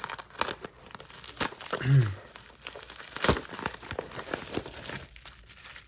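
Packaging being cut and torn open by hand: a run of crinkling, crackling and tearing, with a short hum or grunt about two seconds in.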